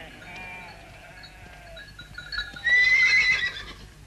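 A young foal's mournful, crying whinnies, a few soft ones and then a louder, longer cry about three seconds in; the foal is weak and in distress.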